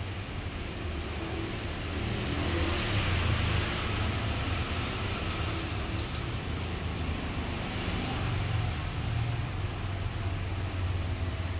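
A steady low rumble under an even hiss, with no clear source.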